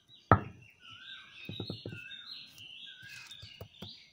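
Small birds chirping in short repeated phrases, with one sharp knock about a third of a second in and a few lighter clicks later on.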